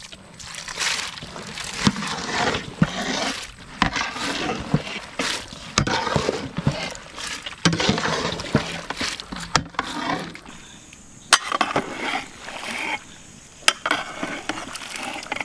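Soaked arhar (toor) dal going into a pot of boiled goat head and vegetables and being stirred in: irregular wet sloshing and scraping, with a few sharp knocks against the pot.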